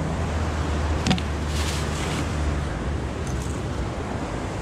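Steady wind rushing on the microphone over a low hum, with a short click about a second in and a brief rustle soon after.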